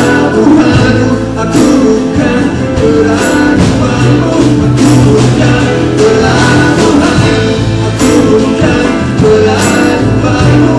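Live band playing a song, with acoustic guitar, a second guitar, keyboard and drum kit. A bright, splashy percussion accent comes about every second and a half over the steady beat.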